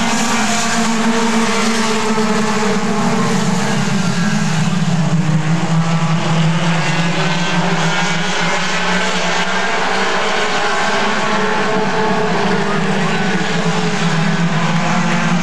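Several mini stock race cars' four-cylinder engines running together at racing speed, their overlapping engine notes slowly rising and falling as the pack circulates.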